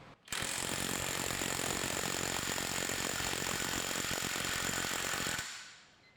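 Kobalt 24-volt cordless mid-torque impact wrench hammering steadily in forward for about five seconds, driving against the torque-test fixture, then fading out.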